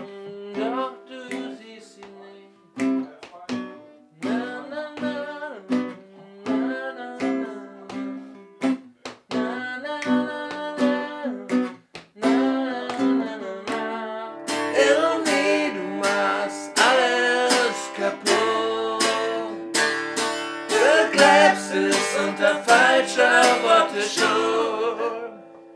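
A song with guitar and singing. About halfway through it grows fuller and louder as more instruments come in.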